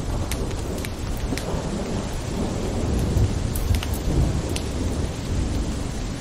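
Steady rainfall with a deep low rumble underneath and scattered sharp drop ticks.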